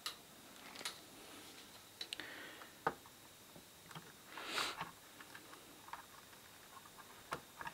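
Faint, scattered clicks and taps from a hot glue gun and hands working inside a plastic radio transmitter case, with a short hiss about halfway through.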